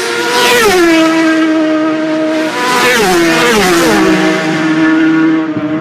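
Superbike-class road-racing motorcycle passing at full speed. The engine note drops sharply in pitch as it goes by about half a second in, drops again about three seconds in, and then holds steady as it moves away.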